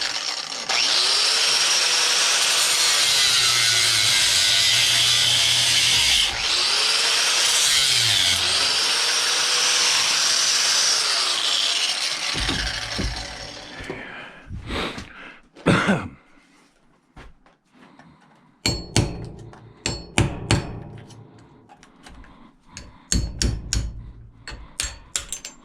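Power tool cutting through a scrap part for about twelve seconds, its motor dipping in pitch a few times under load, then winding down. Scattered knocks and clatter of the part being handled follow.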